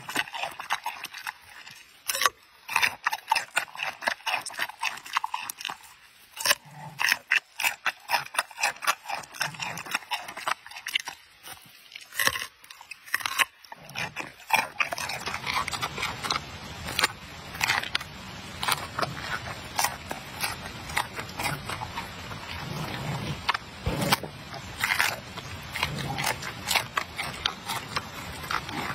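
Giant panda biting and chewing raw carrot: a quick run of loud, irregular crunches. A steady hiss sits underneath from about halfway.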